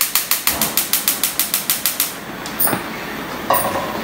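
Gas hob's spark igniter clicking rapidly, about eight clicks a second, for two seconds until the burner lights. Two short knocks follow.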